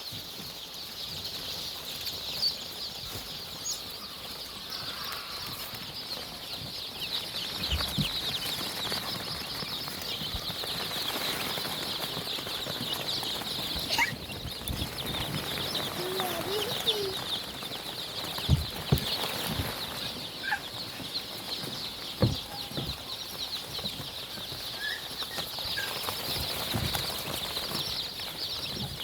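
A large flock of chickens in a poultry house: a dense, continuous high-pitched peeping and chattering, with a few clucks and occasional low thumps.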